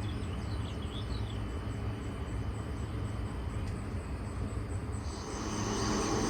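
Rural ambience: a steady low rumble, a few faint bird chirps in the first second and a half, and an insect's steady high buzz coming in about five seconds in.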